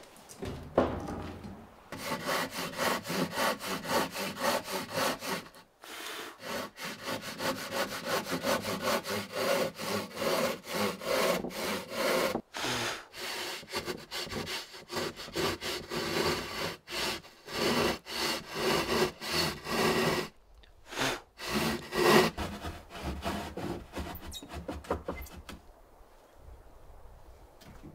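Hand saw cutting through a white board panel with quick, even back-and-forth strokes, pausing briefly a few times and stopping near the end. A single knock sounds just before the sawing starts.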